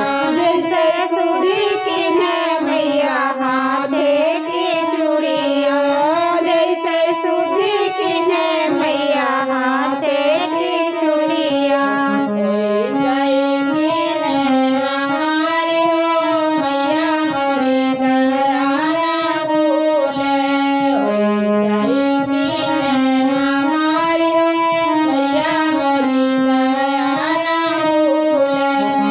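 Women singing a Bagheli devi geet, a devotional folk song to the goddess, in a melismatic, gliding melody, accompanied by a harmonium playing steady reed chords.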